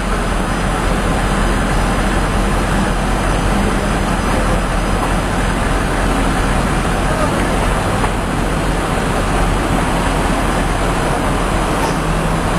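Loud, steady traffic noise of running engines and passing vehicles, with a low engine drone under it; too noisy to make out voices over.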